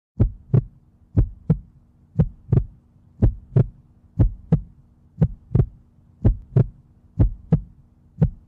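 Heartbeat sound effect: pairs of low thumps about once a second, steady and even, over a faint low hum.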